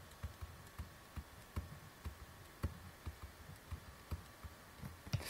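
Faint, irregular tapping and ticking of a stylus on a tablet screen while handwriting, about two to three taps a second.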